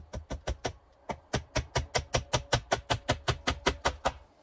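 Hammer driving a nail into a wooden pole with rapid, even blows, some with a slight metallic ring. A few quick strikes, a brief pause about a second in, then a steady run of about five blows a second.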